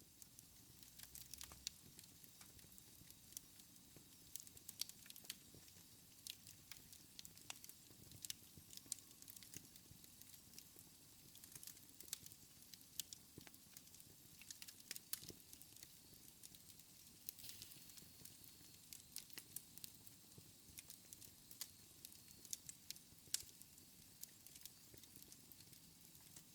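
Wood fire in a fireplace crackling faintly: irregular sharp pops and snaps, several a second, over a soft low rumble of the flames.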